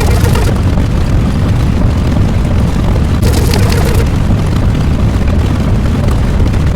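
Loud, continuous low rumble, with a hiss that flares up about every three and a half seconds.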